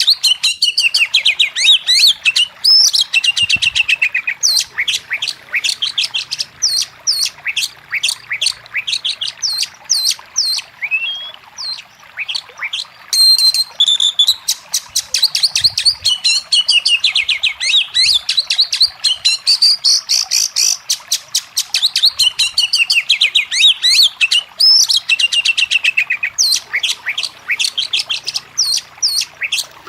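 Oriental magpie-robin (kacer) singing: a loud, unbroken stream of quick sharp chirps and whistled notes, with a fast run of falling notes several times over.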